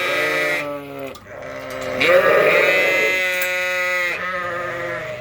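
Sheep bleating: two long, drawn-out bleats, the second starting about two seconds in. These are ewes and lambs separated during loading, calling to each other.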